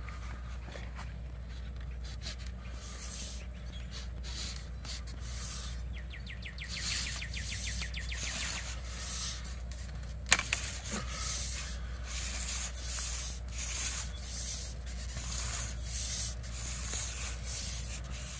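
1¼-inch PVC pipe rubbing and scraping as it is pushed down inside a 2-inch PVC well casing, in repeated hissing strokes, with a sharp knock about ten seconds in. The pipe is going in tight, which the owner hopes is water in the well.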